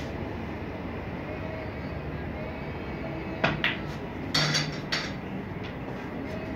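Snooker balls clicking: a sharp click of the cue tip on the cue ball about three and a half seconds in, a quick second click as the cue ball strikes a red, then a louder cluster of knocks as the red drops into a pocket, and one last click about half a second later.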